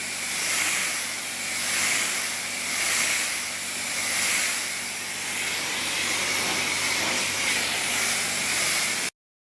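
High-pressure water spray hissing, swelling and fading about once a second as the jets sweep. It cuts off abruptly near the end.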